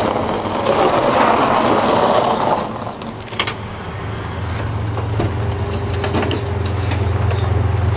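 Minivan rolling onto a gravel driveway, its tyres crunching over the gravel for the first two and a half seconds. After that its engine idles with a steady low hum, and a few clicks and knocks come as the driver's door is opened.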